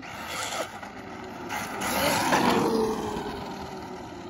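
Traxxas Maxx RC monster truck on 4S brushless power driving fast toward and past, its motor whine rising to a peak a little past two seconds in and then dropping in pitch as it moves away, with tyre hiss on wet pavement.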